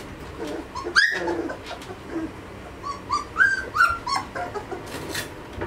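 Two-and-a-half-week-old Belgian Malinois puppies squeaking and whimpering in short high-pitched cries. A loud sharp cry comes about a second in, and a quick run of several cries follows around three to four seconds.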